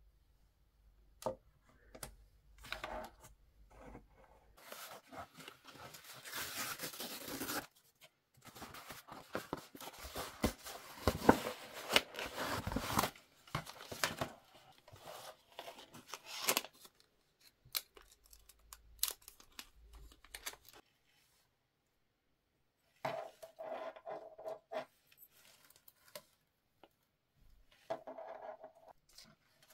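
Watch-strap packaging being opened and handled: plastic and cardboard rustling and tearing in long stretches, with scattered clicks and taps.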